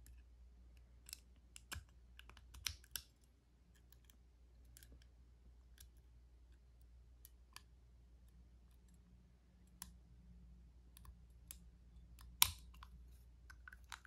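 Faint, scattered small metallic clicks of a lock pick and tension tool working the pins in the small keyway of a Master combination padlock, with one sharper click near the end as the lock comes open.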